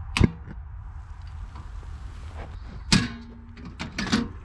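A few sharp clicks and clacks from handling a portable butane camp stove that has gone out, its canister too cold to feed the flame: one right at the start, another about three seconds in, and a couple of lighter ones near the end. Low wind rumble runs underneath.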